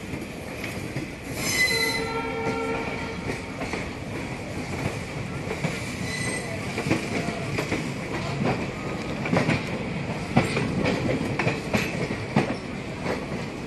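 Two passenger trains running side by side on parallel tracks: a steady rumble of wheels on rail with a constant high squeal, and sharp clacks over rail joints and points, thickest in the second half. There is a short shrill tone about a second and a half in.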